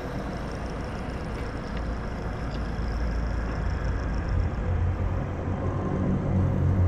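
Horror-film sound design: a low rumbling drone that grows steadily louder, building tension as the creature's face appears.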